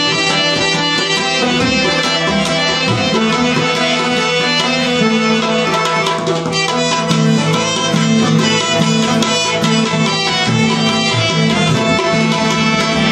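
Instrumental passage of Pashto folk music: tabla drums keeping the rhythm under harmonium, acoustic guitar and rubab playing the melody together.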